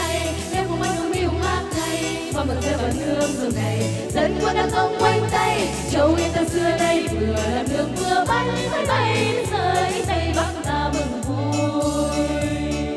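A group of women singing together into microphones over a backing track with a steady bass beat.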